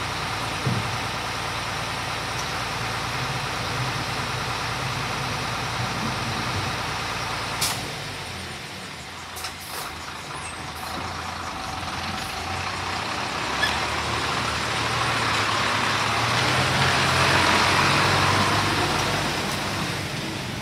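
Isuzu Forward garbage compactor truck's diesel engine idling steadily. A brief sharp sound about eight seconds in is followed by the engine pulling the truck forward and passing close by, growing louder toward the end.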